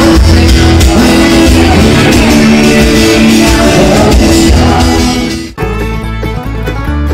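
Live acoustic guitar and a male singer through a small PA, with the bar's crowd around it. About five and a half seconds in, it cuts off abruptly and quieter background music takes over.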